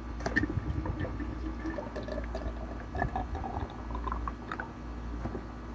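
Liquid glugging out of a spouted jug into the tank of a Holzfforma G660 chainsaw. The gurgle rises in pitch as the tank fills.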